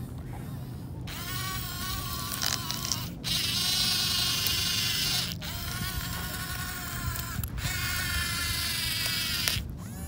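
Small electric gear motors of a KIZJORYA 1:20 remote-control toy excavator whining as the arm and bucket move through the demo routine: four moves of about two seconds each, with brief pauses between them.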